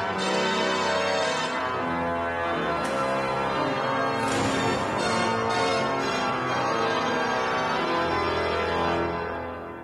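The grand pipe organ of Notre-Dame de Paris playing full sustained chords, many pipes sounding at once, the chords shifting every second or so and dying away near the end.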